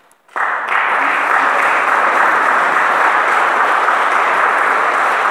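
Audience applause that breaks out suddenly about a third of a second in and then holds steady.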